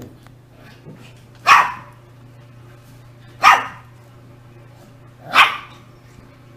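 Shiba Inu puppy giving three short barks, about two seconds apart.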